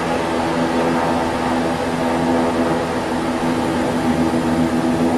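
Twin Pratt & Whitney Canada PT6A-65AR turboprop engines of a Shorts 360 running on the ground with the propellers near 1,000 RPM, heard inside the cockpit: a steady drone with several even humming tones.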